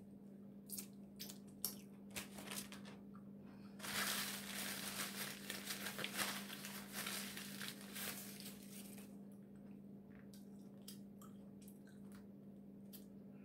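A paper towel crumpled and rubbed while wiping hands and mouth: a loud rustling stretch of about five seconds in the middle. Small clicks and cracks of eating come before and after it, over a steady low hum.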